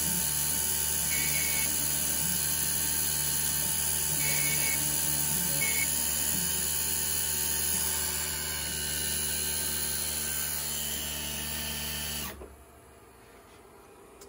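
Taig CNC mill's spindle and 3/16-inch end mill running steadily, taking light finishing passes across the flat tops of an aluminium part. About twelve seconds in it stops suddenly as the last operation with that tool finishes.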